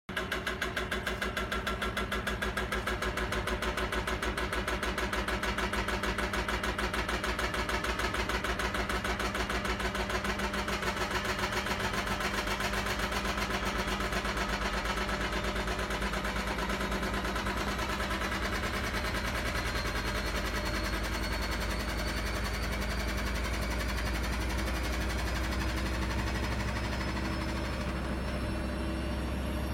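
An engine running steadily with a fast, even pulse; the higher part of the sound fades out near the end.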